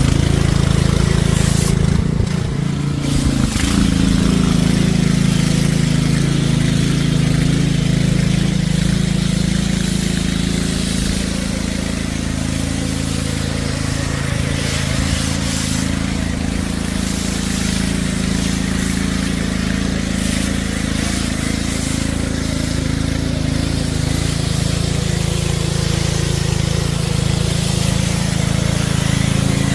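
Dewalt 3600 psi gas pressure washer running steadily with water hissing from the spray wand. The engine note dips and wavers briefly about two seconds in.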